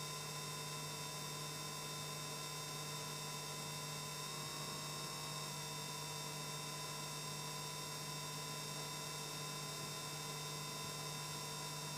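Steady electrical hum over quiet room tone, with a few faint, steady high-pitched tones.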